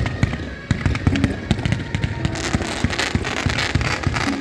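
Fireworks going off: a rapid, irregular run of bangs and crackles, thickening into a dense crackling hiss past the middle.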